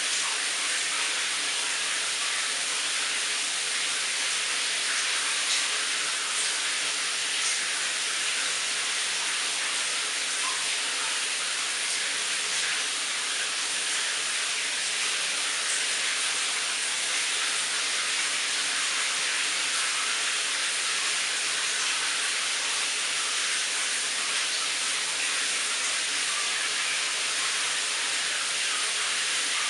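Shower running: a steady hiss of water spraying.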